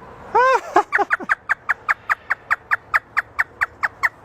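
An African grey parrot imitating hysterical laughter. It gives a few drawn-out rising-and-falling notes, then a fast run of short, high cackles, about five a second.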